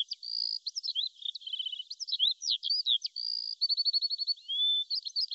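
Songbirds singing: a busy run of high chirps, whistled slurs and quick trills of repeated notes, with a rapid trill about a second and a half in and another just before four seconds in.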